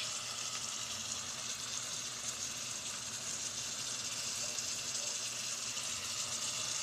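Food frying in the non-stick pot of a Dreepor electric multi-cooker: a steady sizzling hiss.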